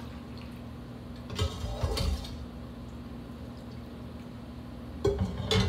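A metal kitchen utensil knocking and scraping against a pot or container in two short bouts, about a second and a half in and again near the end, over a steady low hum.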